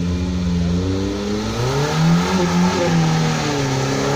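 Off-road 4x4's engine revving up and down under load as it climbs a muddy slope, growing slightly louder as it draws near.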